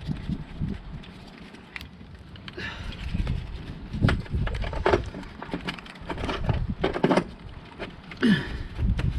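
Wind buffeting the microphone, with scattered knocks and short clatters of hand tools being handled.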